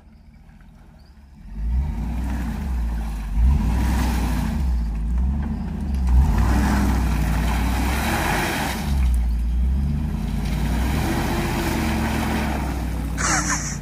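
A 6-litre SUV engine revving hard and unevenly as the vehicle rocks back and forth to get out of mud, its tyres spinning for grip. The engine comes in loud about a second and a half in after a quieter start.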